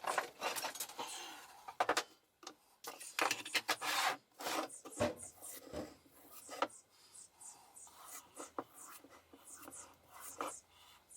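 Hand-sanding the wooden knife handle: sandpaper rubbing and scraping on the wood in short, irregular strokes.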